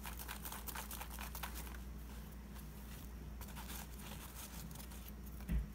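Folded paper slips crinkling and rustling as they are shaken inside a fabric fitted cap and a hand rummages among them, the crackling densest in the first two seconds. A soft low thump near the end.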